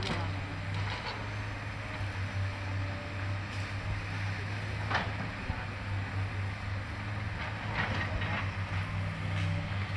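Diesel engine of a SANY hydraulic excavator running steadily as it clears brush, with a few short cracks and knocks from the bucket working through branches.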